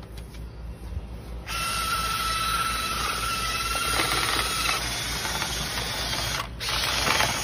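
Cordless drill spinning a flexible dryer-vent cleaning rod and brush inside a lint-clogged dryer vent. The drill starts about a second and a half in and runs steadily with a high whine, stops briefly near the end, then starts again.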